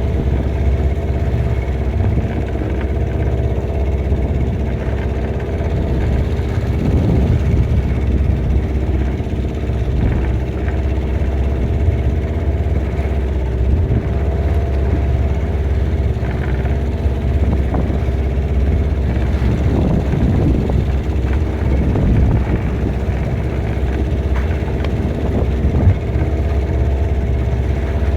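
Boat engine running steadily at low speed, an even drone with a constant pitch.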